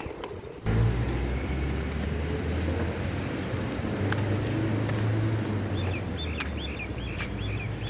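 A low, steady rumble starts suddenly about a second in and runs on. Near the end a small bird chirps about eight times in quick succession.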